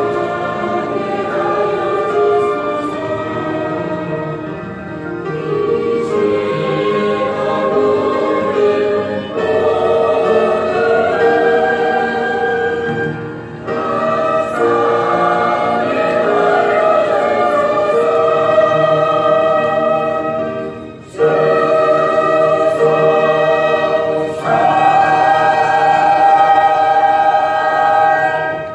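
A church choir singing a hymn in long held phrases, with short breaks between phrases.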